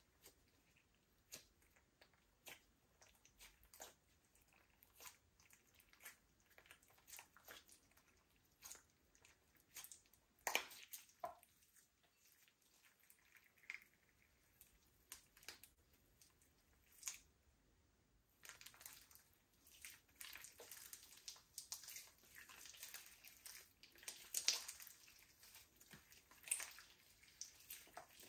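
Slime being worked by hand, heard faintly: scattered small clicks and pops, then from about two-thirds of the way in a denser, steady run of crackling as it is mixed.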